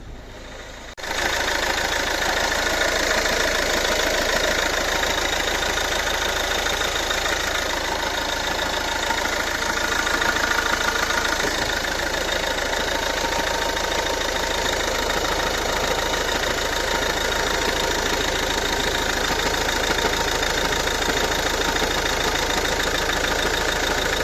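Ford Kuga's 2.0 TDCi four-cylinder diesel engine idling steadily with its diesel clatter, cutting in abruptly about a second in.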